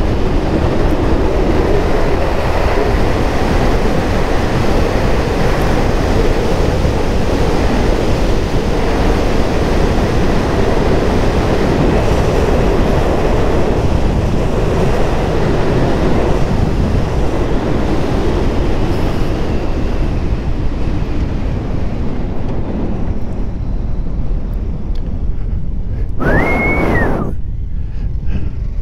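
Heavy wind rush on the microphone of a motorcycle riding at speed, with the engine running underneath. About 26 seconds in, a brief high whistling tone rises and falls.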